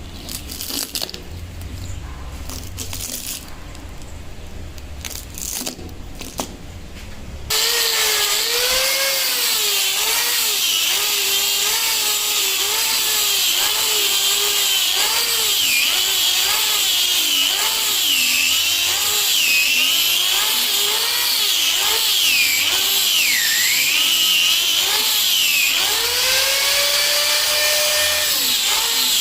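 A handheld power tool starts about seven seconds in and runs loudly, its pitch dipping and recovering again and again as it is pressed into the work. Before it starts there is only a low rumble with a few clicks.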